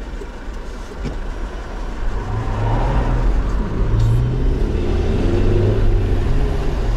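Car engine and road noise heard from inside the moving car, growing louder about two seconds in as the car gathers speed.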